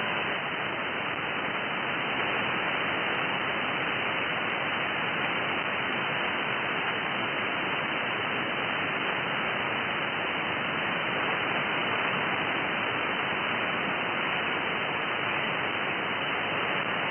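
Static hiss from a NetSDR receiver tuned to an empty channel on the 60 m amateur band near 5.3985 MHz, after the last station has signed off. The band noise is steady and cut off above about 3 kHz by the receiver's filter.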